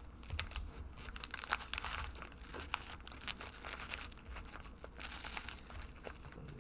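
Wrapped 2014 Prestige Football card packs crinkling and clicking against one another as a stack of them is handled and shuffled by hand, in quick irregular crisp ticks.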